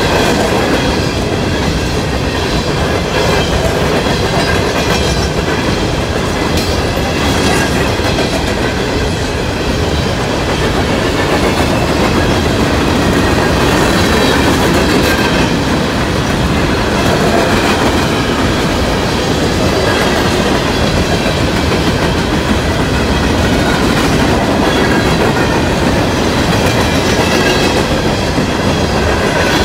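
A long CSX coal train of hopper cars rolling past, a steady heavy rumble with the clickety-clack of wheels over rail joints.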